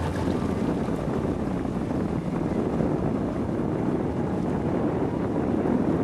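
Steady noise of wind on the microphone and water from a slowly moving wakeboard towboat, even throughout.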